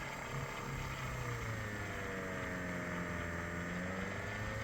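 Small axial-flux alternator running as a brushless motor, a steady electric whine with a low hum. About a second and a half in its pitch sags as the spinning rotor is braked by hand under load, then climbs back toward the end as it is let go.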